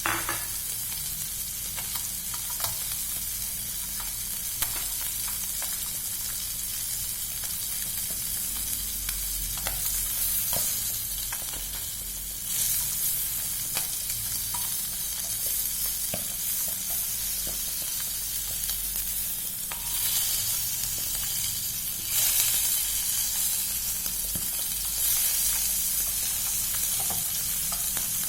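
Food deep-frying in hot oil, sizzling steadily with scattered light clicks. The sizzle swells louder several times partway through.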